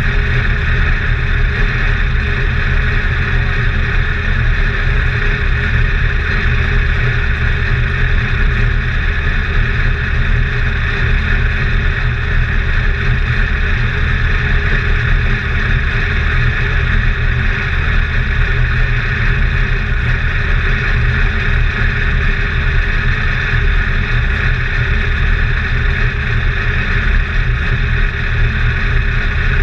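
A race car's engine idling steadily, heard from inside the cockpit as a low, even rumble with a steady hiss above it and no revving.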